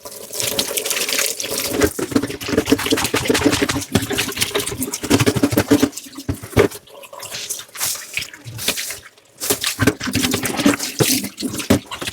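Water running from a kitchen tap into a sink while dishes are washed by hand, with short knocks and clatter throughout. The sound drops away briefly about three-quarters of the way through, then picks up again.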